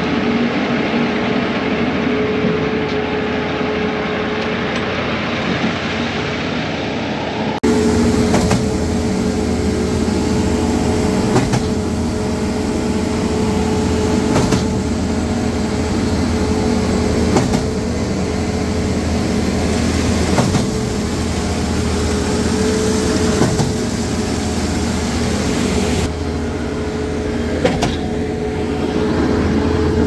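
Diesel engine of a truck-mounted concrete boom pump running steadily under load. From about eight seconds in, a sharp knock comes roughly every three seconds as the pump switches strokes while pumping concrete.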